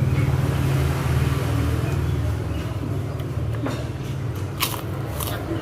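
Steady low rumble of motor vehicles, with a few short sharp clicks in the second half.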